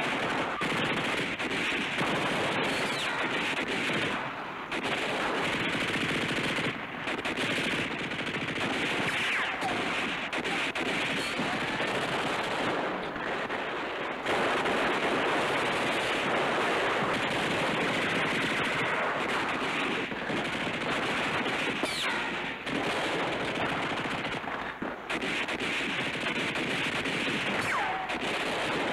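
Sustained firefight: continuous machine-gun bursts mixed with rifle shots, with no pause. Two falling whines cut through it, one past the middle and one near the end.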